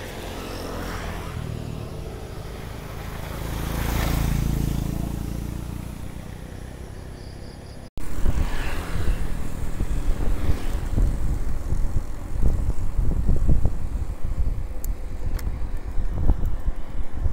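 A motorcycle passes on the road, growing louder to a peak about four seconds in and then fading. After an abrupt cut, wind buffets the microphone of a handlebar camera on a mountain bike being ridden along the road, in uneven gusts.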